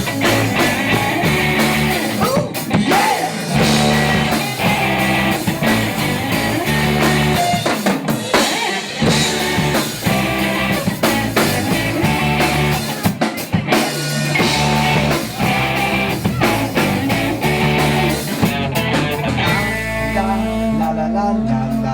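Rock band playing an instrumental passage on drum kit and electric guitar. About two seconds before the end the drums stop and a low note is held.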